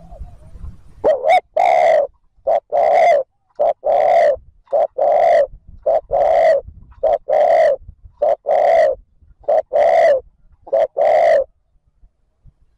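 Spotted dove cooing at close range in a fast run of paired coos, each a short note followed by a longer one, about one pair a second, stopping near the end. This is the rapid 'thúc gù' cooing of a decoy dove, used to provoke wild doves into answering.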